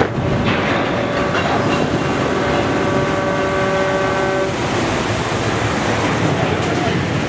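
Cargo ship hitting the water sideways in a side launch: a sudden jolt, then a loud, continuous rush and splash of water as the hull slides in and pushes a wave across the canal. A horn sounds over the splashing from about half a second in and stops at about four and a half seconds.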